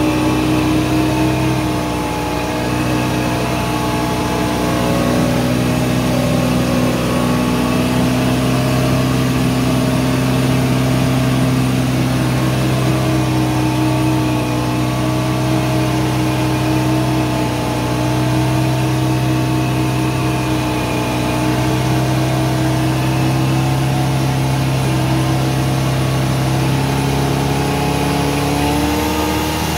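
Old rubber-tired log skidder's diesel engine running steadily, heard from inside its open cab, the engine speed shifting a little and falling off near the end.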